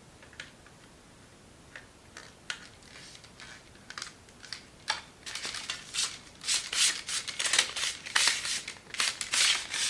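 Reflector strip being slid by hand into the groove of an LED grow light bar: a few scattered clicks, then from about five seconds a run of scraping and rattling as it is pushed along the track, louder toward the end.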